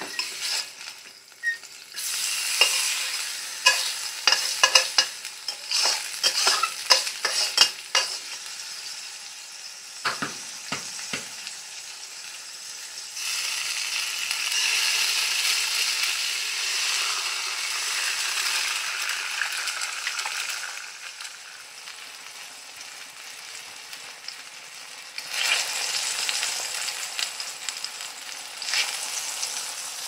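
A pork sausage patty sizzling in oil in a wok, with metal spatula scrapes and taps in the first several seconds. A few knocks come around ten seconds in as an egg is cracked, then the sizzle grows louder as the egg goes into the hot oil and fries alongside the patty.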